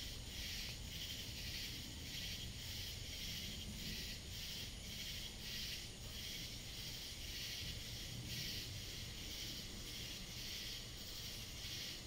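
A dense chorus of night-singing insects: a high, hissing buzz that pulses evenly about two to three times a second, over a low rumble.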